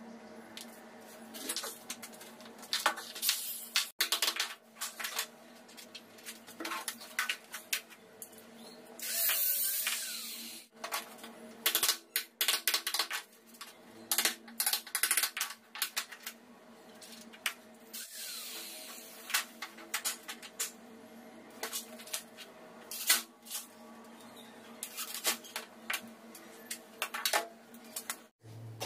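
Hammer striking a wood chisel in irregular sharp knocks, chopping recesses into the edge of a plywood door for sliding-door rollers, with a short scraping stretch about nine seconds in.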